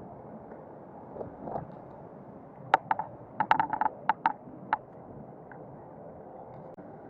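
About ten short, sharp metallic clinks in a quick, uneven run near the middle, over a steady rush of wind and road noise.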